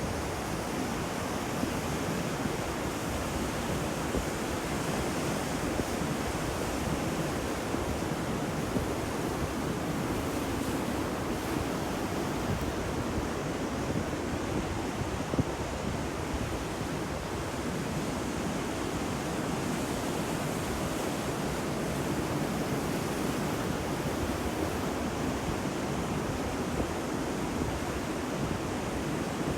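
Ocean surf: a steady, unbroken wash of waves.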